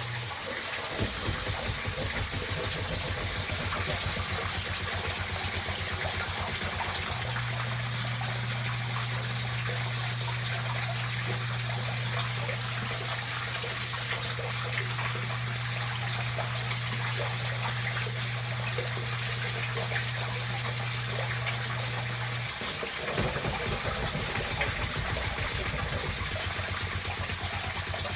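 Floodwater rushing and gushing steadily, with no break.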